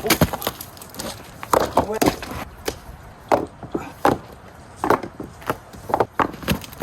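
Irregular knocks and scrapes, about a dozen spread unevenly, from camping gear being handled and set up by hand.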